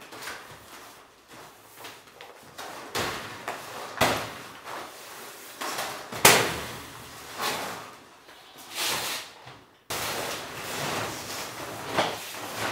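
Plastic tarp crinkling and rustling in bursts as it is unfolded and spread out, with a few sharp snaps, the loudest about six seconds in.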